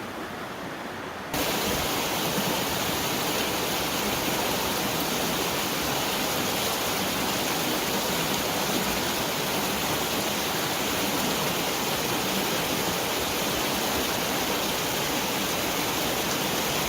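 Steady rush of muddy floodwater running down the wash after a flash flood. It jumps louder about a second in, then holds even.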